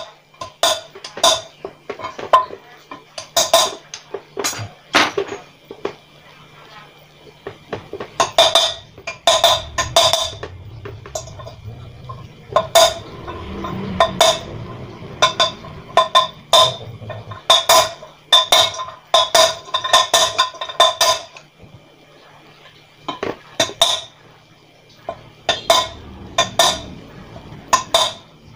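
Hammer striking a metal drift to drive a new wheel bearing into the hub of a Honda CBR150R's rear wheel. The blows are sharp and ringing, in runs of about two a second with a few short pauses.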